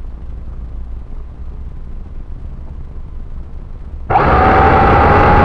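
A low rumble, then about four seconds in the Syma X8C quadcopter's motors start suddenly and run loud, a steady whine of spinning propellers.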